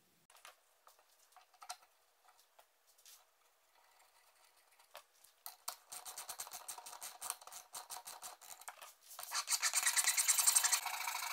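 Light handling clicks, then a flat hand file rasping in quick strokes against a piece mounted on a bolt. The filing starts about halfway through and gets much louder near the end.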